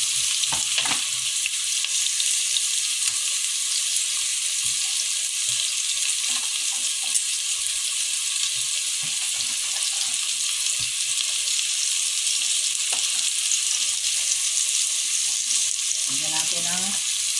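Diced onion and cubes of kalabasa squash sizzling as they sauté in oil in a pot: a steady frying hiss with scattered small pops.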